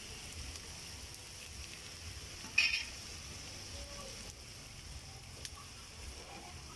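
Tomatoes frying in a cooking pot, giving a steady sizzling hiss. About two and a half seconds in there is one brief, louder noise.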